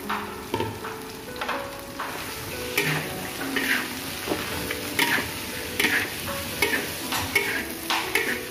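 Metal spatula scraping and turning pounded cassava leaves in a wok, with the oil sizzling under them; the scrapes come about twice a second.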